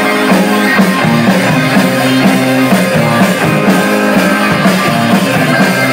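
A live rock band playing loudly: electric guitars over a drum kit keeping a steady beat.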